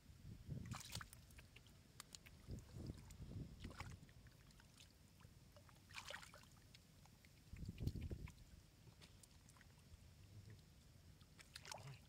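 Hands groping through mud and shallow muddy water, making faint, intermittent sloshes and squelches with a few small splashes; the loudest is a low slosh about eight seconds in.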